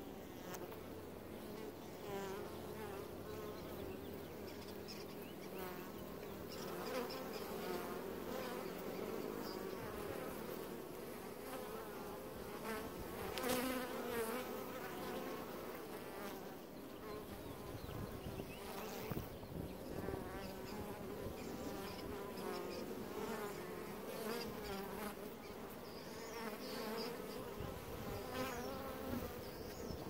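Honey bees buzzing at a hive entrance: a dense, steady hum of many bees, with single bees flying close past now and then, their buzz rising and falling in pitch as they go by.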